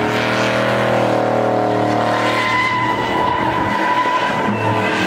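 Pickup truck doing donuts: its engine is held at high, fairly steady revs while the spinning rear tires squeal.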